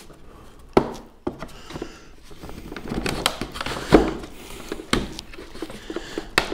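Valchromat fibreboard panels being slotted together by hand: a panel scrapes as it slides into the slots, with several sharp knocks and taps as the boards meet.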